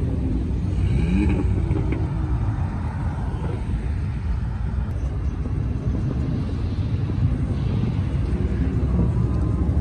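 Cars driving past on a multi-lane road, a steady low rumble of engines and tyres, with a short engine rev rising and falling about a second in.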